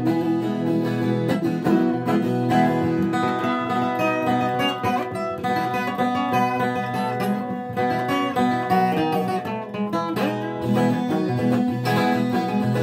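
Viola caipira, the Brazilian ten-string folk guitar, played alone in an instrumental passage: a steady run of plucked notes over ringing lower strings.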